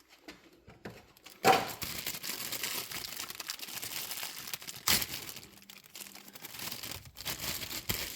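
Crinkling and rustling of packaging as a new cabin air filter is unwrapped and handled. It starts with a loud crackle about a second and a half in, with another sharp crackle near the middle.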